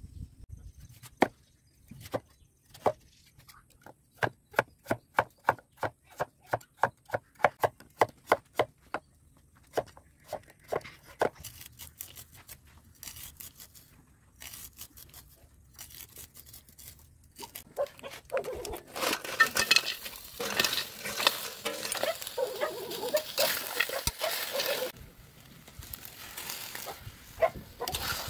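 A kitchen knife chopping squash and corn on a wooden cutting board: a run of sharp, even knocks, about two or three a second, then scattered chops. In the last third comes a denser, scraping clatter.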